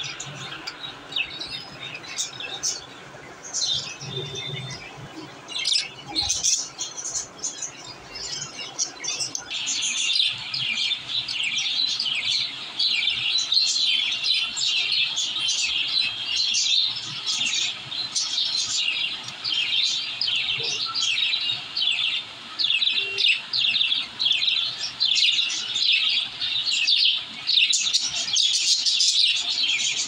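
Budgerigars chirping and chattering: scattered high chirps at first, then from about ten seconds in a continuous fast warble of high chirps.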